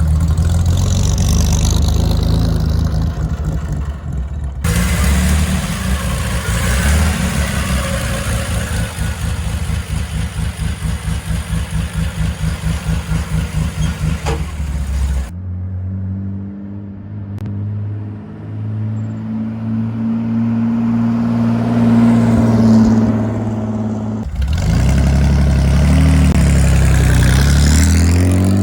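Straight-six engine of a 1953 Chevrolet 3100 pickup running through dual glass-pack exhausts, in several cut-together takes. One take has an even throb of about three beats a second. The later takes rise in pitch as the engine revs or the truck pulls away, and the last one climbs steadily near the end.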